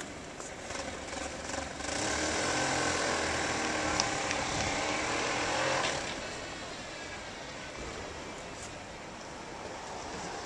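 Police escort motorcycle and black sedan driving slowly away across cobblestones. Their engine sound swells for about four seconds, starting a couple of seconds in, then fades to a steady low background.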